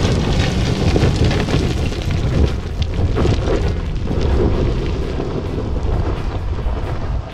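Loud, heavy rumbling noise of an off-road vehicle on a rough track, with many short knocks and wind buffeting the microphone. It cuts off abruptly near the end.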